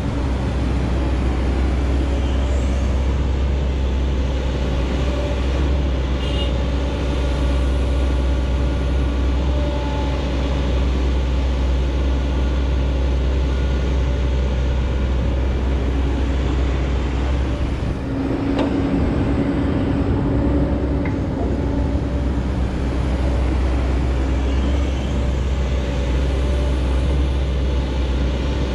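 Heavy diesel engines of excavators and trucks running steadily under working load. About eighteen seconds in the deep rumble dips briefly and a higher engine note stands out.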